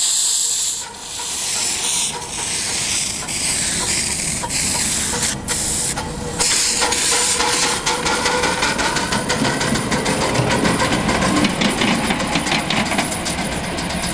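Live-steam 7.25-inch-gauge model of a Darjeeling Himalayan Railway B-class 0-4-0 locomotive pulling away. It opens with a loud hiss of steam blowing from around the cylinders. Its exhaust beats then come faster and faster as it gathers speed.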